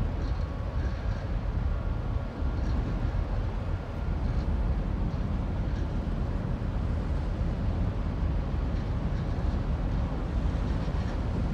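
Large patrol ship's machinery giving a steady low rumble as it manoeuvres slowly alongside to berth, with faint steady tones above the rumble.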